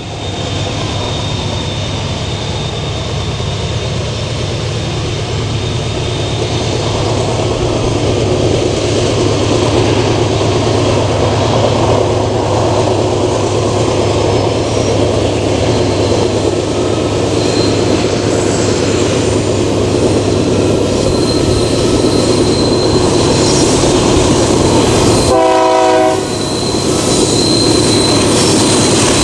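Freight train hauled by a GE AC44i diesel-electric locomotive rounding a curve as it approaches, its engine's low rumble growing steadily louder, with a thin steady squeal from the wheels on the curve. One short horn blast sounds about 25 seconds in.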